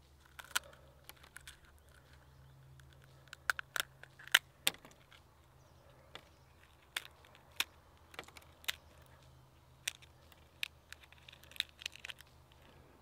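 Shell of an unhatched duck egg being cracked and picked off by fingers: a scatter of small, sharp cracks and clicks, the loudest about four and a half seconds in.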